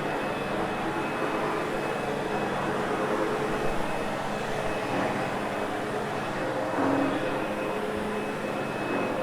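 Sebo X8 upright vacuum cleaner running steadily, its motor whine and brush roll drawn over carpet.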